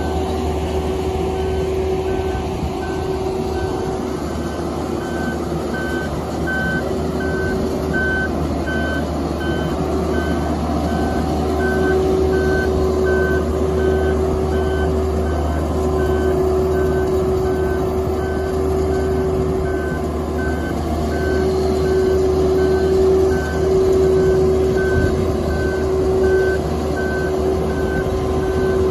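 Marine Travelift mobile boat hoist travelling with a motor yacht slung beneath it: its engine runs with a steady low drone and a held tone, and its travel alarm beeps steadily, about three beeps every two seconds.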